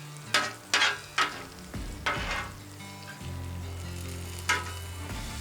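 Food sizzling on a hot flat-top griddle, with six short, sharp metal scrapes, the second-to-last one longer.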